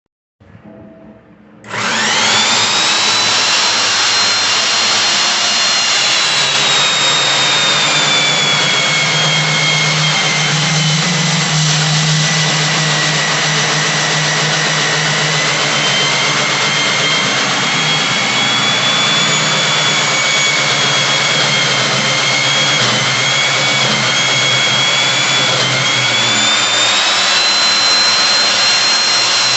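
Electric core cutter starting up about two seconds in and then running steadily, a loud high whine that sags slightly in pitch through the middle and climbs again near the end.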